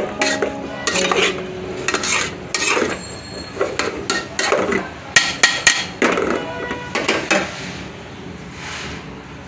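Metal spoon scraping and knocking against the inside of a metal pot, stirring chopped tomatoes, onions and green chillies in irregular strokes about twice a second. There are a few sharp clinks a little past the middle, and the stirring dies down near the end.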